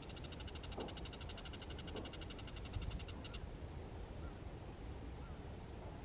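Bull-headed shrike calling: a fast chattering run of high notes, lasting a little over three seconds and then stopping.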